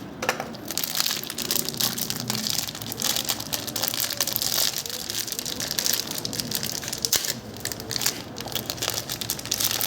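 Packaging of a new motorcycle camshaft being opened by hand: wrapping crinkling and crackling with many small rustles and clicks.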